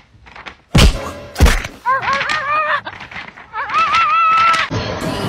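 Two heavy thuds about a second in, then two runs of high, wavering whimpering calls from young dogs.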